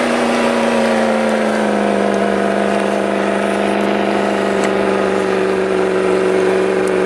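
Land Rover Discovery's engine held at high revs under full load as it climbs a snowy slope. The note is loud and steady and dips slightly in pitch about two seconds in.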